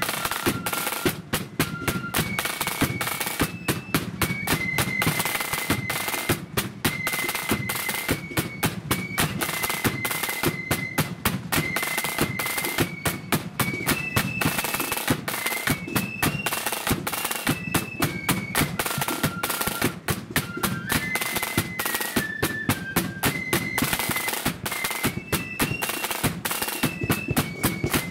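Blood-and-thunder marching flute band playing a tune: flutes carry a single melody line of held notes over rapid snare drumming and a steady bass drum beat.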